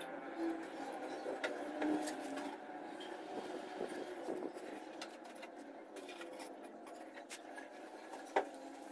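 A small steel trowel blade scraping and trimming fresh cement, with light scrapes and scattered clicks of the tool against the surface; one sharper click near the end is the loudest sound.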